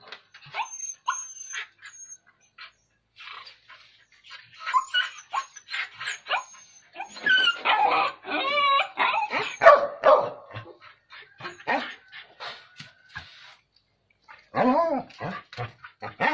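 A dog whining and yelping in short bursts, with a louder, busier run of yelps about halfway through and another near the end.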